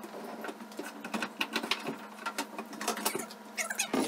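Heavy built-in microwave oven being slid and lifted out of its wooden cabinet recess: an irregular run of scrapes, knocks and rattles as it drags over its base and bumps the cabinet, busiest in the second half.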